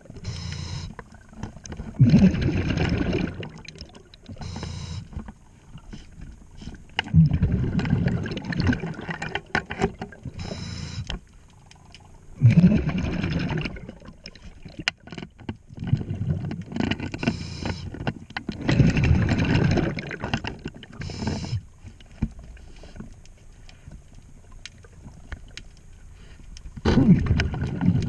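Scuba diver breathing through a regulator underwater: a short hiss on each inhale and a longer burble of exhaled bubbles, repeating every few seconds, with a few faint clicks between breaths.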